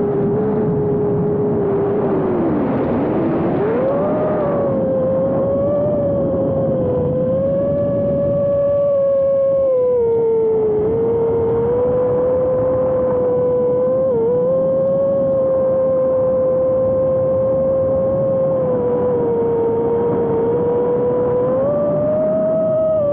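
Brushless motors and propellers of a 6S 5-inch FPV quadcopter whining in flight, heard from an onboard camera over rushing air. The pitch drops sharply and climbs back about three seconds in as the throttle is chopped and punched. After that it holds fairly steady with slow rises and falls and a brief dip later on.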